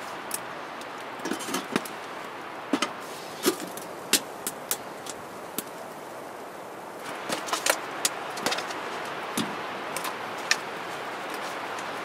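Sharp clicks and clinks of a metal utensil and a frying pan on a small wood stove, over a steady hiss. About seven seconds in, a brighter hiss sets in: butter starting to sizzle in the hot pan.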